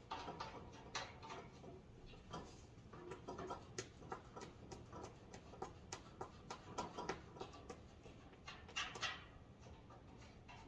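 Faint, irregular light clicks and knocks of screws being tightened by hand tool into the feet of a metal tool rack.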